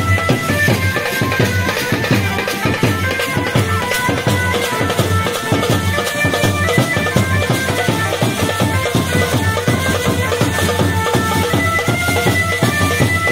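Band baja playing folk dance music: a wind instrument carries a fast, ornamented melody over steady, dense drumming.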